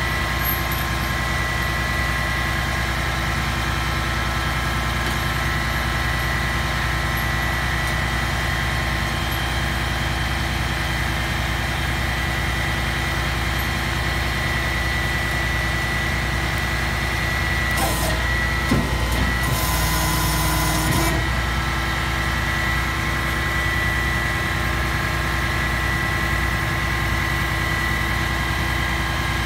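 Skip-loader truck's diesel engine idling steadily. About two-thirds of the way through there is a brief hiss with a clunk, lasting a few seconds.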